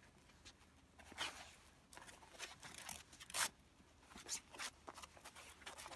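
Braided line rustling and scraping as gloved hands pull it through and tie half hitches, with a few brief louder scuffs, the sharpest about three and a half seconds in.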